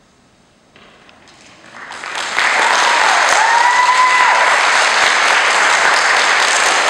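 Audience applause after a school orchestra piece: a few claps about a second in, swelling to full applause within the next second or two. About three seconds in, someone in the audience whistles a note that dips, then rises and holds for about a second.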